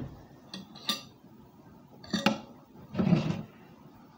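A plate knocking and clinking a few times, in short separate sounds, as a slice of pizza is picked up from it.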